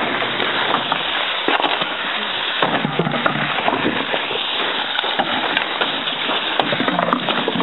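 Dense, steady crackling and popping from a fire burning in a microwave oven.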